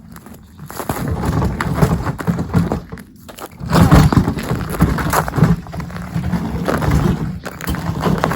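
Irregular crunching and crackling, loudest about four seconds in.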